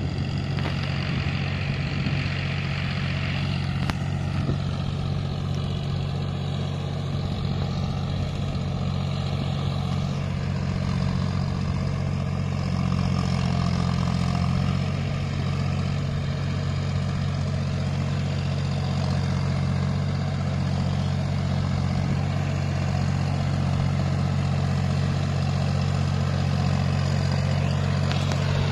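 John Deere 5050 D tractor's three-cylinder diesel engine running steadily under load as the tractor pulls through deep mud, growing slightly louder partway through.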